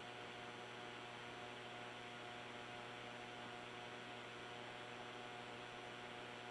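Steady electrical hum and hiss with several faint steady tones: the background noise of a radio downlink audio feed, left running after the speech ends.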